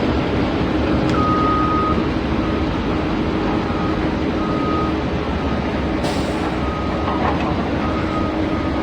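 A toy construction vehicle's small electric motor and gears running steadily, with a series of electronic beeps at one pitch: a longer beep about a second in, then shorter, irregular beeps.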